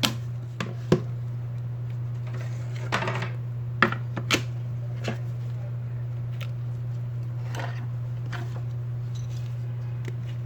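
Small sharp clicks and taps, about a dozen scattered irregularly, with a short scratchy rub about three seconds in: a smartphone and small repair tools being handled on a workbench. A steady low hum runs underneath throughout.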